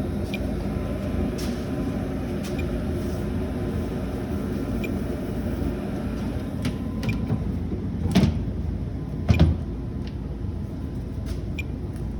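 Residential forced-air furnace running after being switched back on, a steady low hum, with two louder knocks about 8 and 9.5 seconds in.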